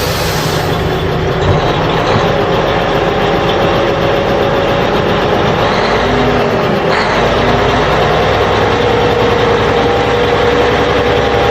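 Engine sound effect of a heavy vehicle running steadily, a dense continuous rumble with a faint held tone. It starts and cuts off abruptly.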